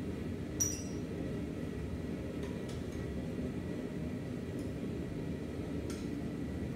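Steel tongs and tools being handled at an anvil: a sharp metallic clink with a short ring about half a second in, then a few light taps. A steady low rumble of shop equipment runs underneath.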